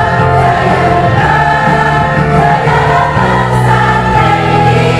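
A mixed choir of women and men singing a song together, holding long notes that change every second or so.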